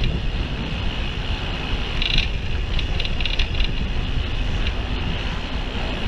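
Wind buffeting the microphone of a camera on a moving bicycle, over the noise of road traffic alongside. A few short high-pitched sounds come about two to three and a half seconds in.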